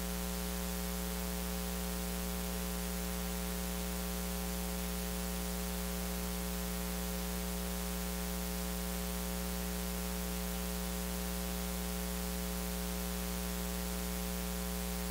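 Steady electrical mains hum with a buzz of many even overtones and a hiss over it, unchanging in level.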